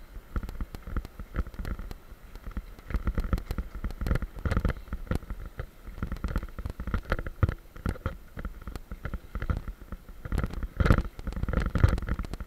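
Mountain bike rolling fast down a leaf-covered dirt trail: tyres rumbling over dirt and leaves, with the bike and camera mount knocking and rattling over bumps, heaviest near the end.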